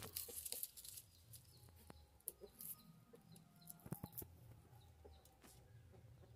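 Very quiet: small dry clicks and crackles of garlic cloves being peeled by hand, with faint chicken clucking in the background.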